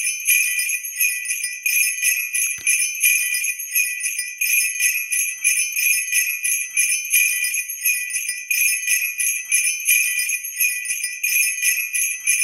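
Jingle bells shaken in a steady, fast rhythm as a festive outro sound, with one brief low thump about two and a half seconds in.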